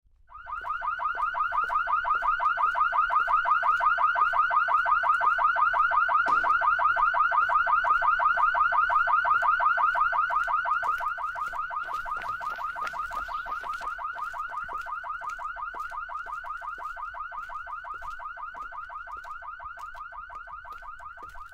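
Electronic alarm sounding: one pitched tone pulsing rapidly, several times a second. It starts abruptly, drops a step in loudness about halfway through and then slowly fades.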